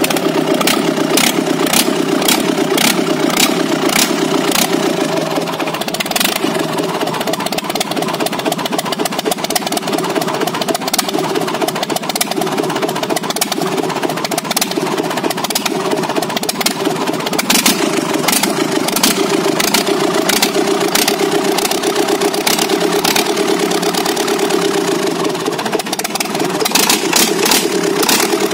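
Freshly rebuilt JCB Kirloskar 4R1040 four-cylinder diesel engine running steadily on its first run after the rebuild, with its rocker cover off. Sharp clicks repeat every half second or so over the running sound.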